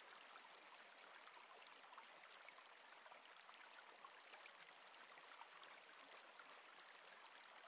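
Faint, steady sound of a flowing stream, an even water murmur with small trickling ticks.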